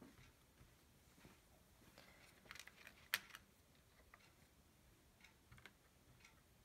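Near silence: faint, scattered taps and light rustles of a cotton swab dabbing paint onto a canvas, with one sharper click about three seconds in.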